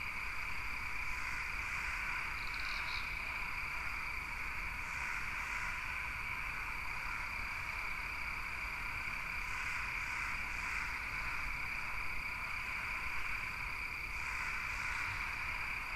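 A steady, continuous chorus of calling animals, with faint short clusters of chirps on top every few seconds.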